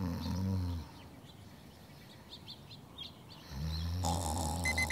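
A person snoring in sleep: two long, low snores, one at the start and another about three and a half seconds in. An alarm clock starts beeping right at the end.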